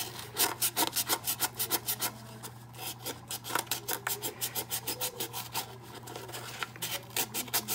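Hand sanding the coated surface of a ceramic cup with a flexible foam-backed Crystalac sanding sheet. Quick rhythmic rubbing strokes come about four a second, easing briefly around two to three seconds in.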